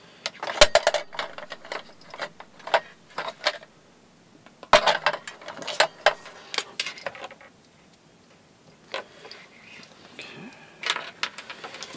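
Plastic art markers clicking and clattering against one another as they are sorted through and picked up from a pile. The sharp clicks come in clusters, with a quiet stretch about two-thirds of the way through.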